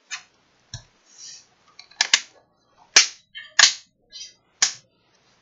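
A string of sharp plastic clicks and knocks, about eight in all, some in quick pairs, as a Dell Inspiron 15 3000 laptop is handled and turned over.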